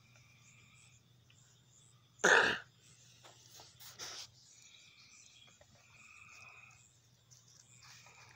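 A single short, loud sneeze a little over two seconds in, followed by a fainter burst near four seconds. Behind it, evening insects call in drawn-out buzzing notes, several of them about a second long.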